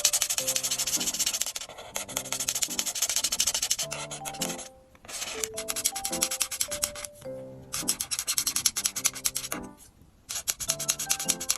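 Paper cutouts rubbing and scraping against paper in long scratchy strokes, in several bursts with short pauses between them, over light background music.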